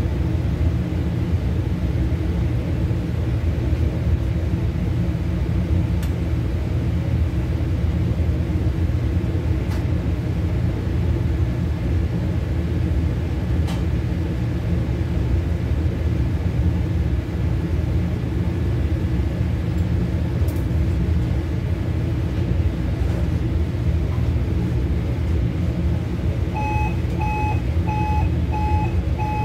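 Steady low rumble of running commercial kitchen equipment, with a few faint clicks. Near the end an electronic beeper starts sounding a steady series of short beeps, about three every two seconds.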